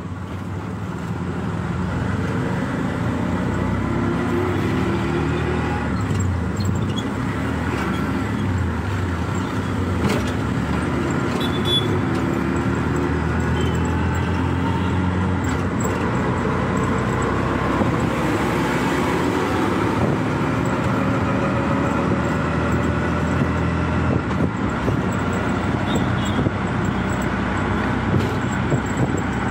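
A CNG auto-rickshaw's engine running steadily as it drives along, heard from inside its cabin, with road and traffic noise; the engine note rises and falls a little with speed.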